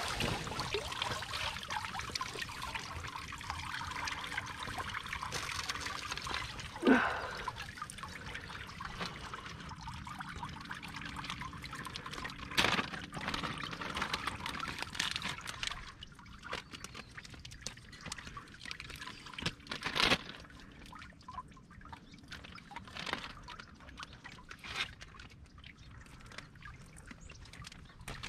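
Water trickling and dripping off a wet golden retriever into shallow marsh water, fading about halfway through. A few sharp knocks now and then.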